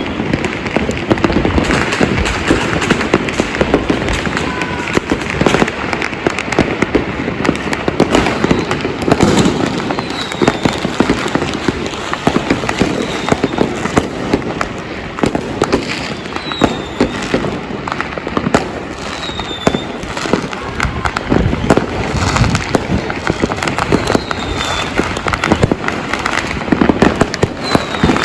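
Dense fireworks and firecrackers going off without pause, overlapping bangs and crackling, with a few short high falling whistles now and then.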